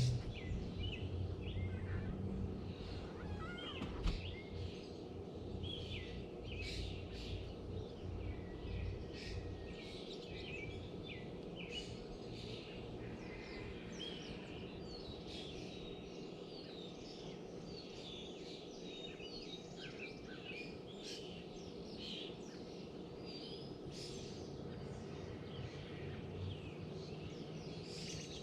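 Many small birds chirping and calling at once in a dense, overlapping chorus, over a low steady background rumble that drops away about ten seconds in. A single sharp knock about four seconds in.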